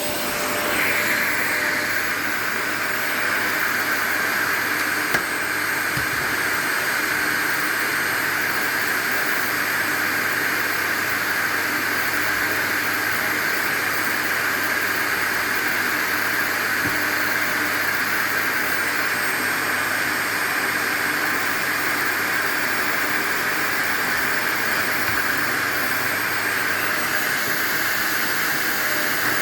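Vacuum cleaner running with a steady whooshing hiss. Its note rises and gets louder about a second in, then holds. There is one sharp click about five seconds in.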